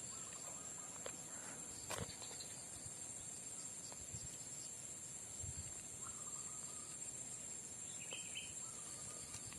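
Steady high-pitched insect chorus, with a sharp click about two seconds in and a couple of brief faint calls near the middle and end.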